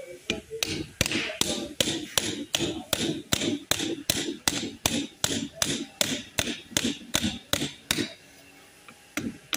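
Hammer tapping on a Toyota Land Cruiser power steering box during a rebuild: quick, even metal blows about three a second, stopping after some eight seconds, with one more tap near the end.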